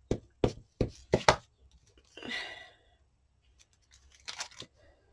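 A quick run of sharp taps, about three a second, that stops after a little over a second, followed by a short papery rustle and a few faint taps near the end.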